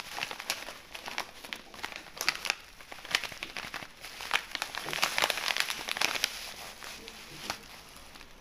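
Plastic tobacco pouch crinkling as loose cut tobacco is shaken and poured out of it onto a wooden table, with irregular sharp crackles throughout.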